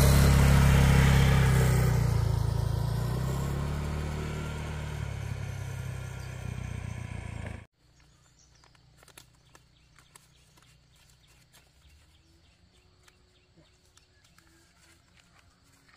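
Honda Air Blade scooter's single-cylinder four-stroke engine pulling away and fading steadily as it rides off. About eight seconds in, it cuts off abruptly to near quiet with a few faint clicks.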